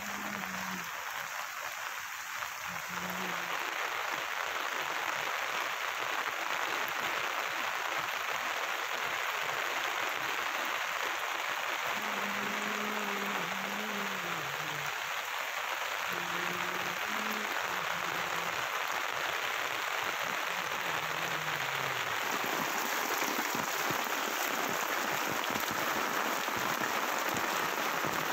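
Heavy rain falling steadily onto flooded streets, a continuous hiss of rain on water that grows a little louder a few seconds in.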